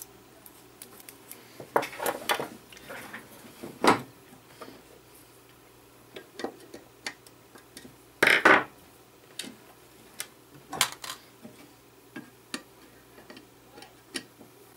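Handling noise on a wooden workbench: scattered small clicks and knocks as a potentiometer board and a screwdriver are set down and picked up, the loudest clatter about eight seconds in. Near the end, a screwdriver clicks inside the metal enclosure of a guitar effects pedal.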